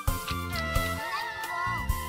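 Background music with a steady beat and held melodic tones.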